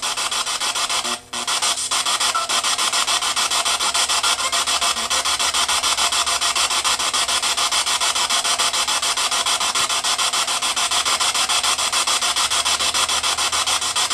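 Spirit box sweeping through radio stations: a loud, rapidly chopped hiss of radio static, with a brief dropout about a second in.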